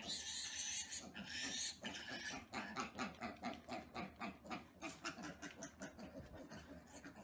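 Micro piglets grunting rapidly, several short grunts a second, with two harsh, high-pitched squeals in the first two seconds.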